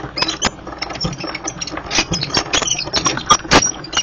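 Die-cutting machine cutting a paper waterfall die: a run of irregular mechanical clicks and knocks as the plates feed through the rollers, the loudest two near the end.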